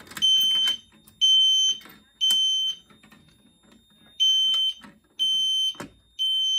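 A fire alarm horn sounds a high tone of about 3 kHz in the temporal-3 evacuation pattern: three half-second blasts, a pause, then three more. A faint steady high whine runs underneath, and there is a single sharp click near the end.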